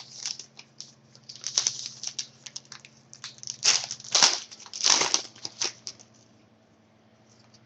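Hockey trading cards and their crinkly packaging being handled, in a string of short crinkling, sliding rustles that stop about six seconds in.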